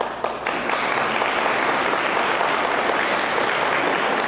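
Audience applauding: a few single claps at first, then steady clapping from the whole crowd.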